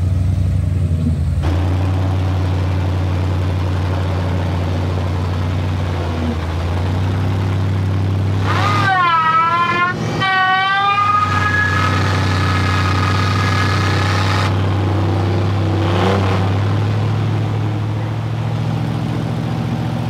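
Vehicle engine running steadily under the scene. A high whine joins it about eight and a half seconds in, dipping and wavering at first, then holding a steady pitch until about fourteen seconds in.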